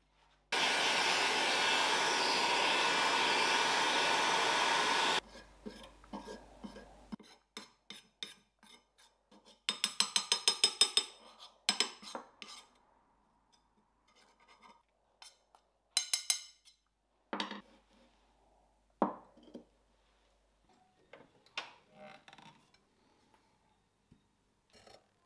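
Belt grinder grinding a steel knife blade, a loud steady rush for about five seconds that cuts off suddenly. After it come scattered scrapes, rapid clicks and a few sharp knocks as a grey coating is brushed onto the blade.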